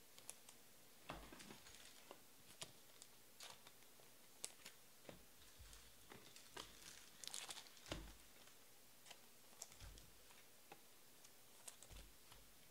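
Near silence with faint, irregular clicks and light rustles of trading cards being handled and slid into plastic sleeves.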